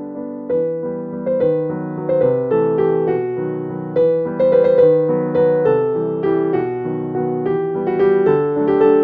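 Background piano music: a gentle melody of struck notes, each starting sharply and fading, about two a second.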